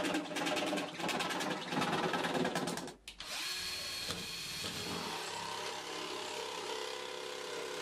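Cordless jigsaw cutting overhead through plastic fascia, its blade making rapid, uneven strokes; about three seconds in it stops and a cordless power tool runs on more steadily.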